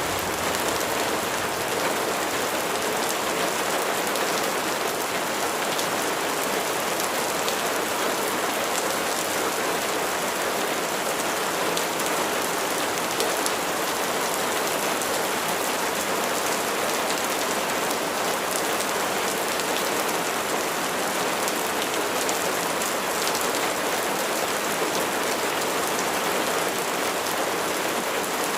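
Steady rain falling, an even hiss that holds level without let-up.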